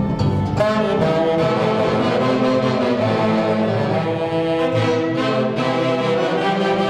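Live band music from a row of saxophones playing a melody together in harmony, backed by violins. A new phrase comes in about half a second in.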